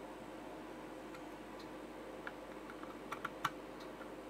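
Small screwdriver turning screws into a 3D-printed plastic case: scattered faint clicks and ticks, with a cluster of sharper clicks about three seconds in.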